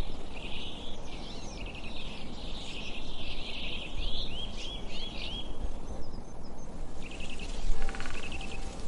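Woodland ambience: birds chirping and trilling over a steady low rumble, with a run of quick looping bird notes about halfway through. Near the end, steady sustained music tones come in.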